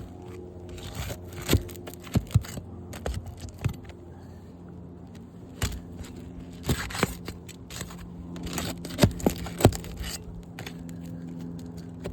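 Scraping, tearing and irregular sharp knocks of hand work on three-tab asphalt roof shingles, with a steady low hum behind.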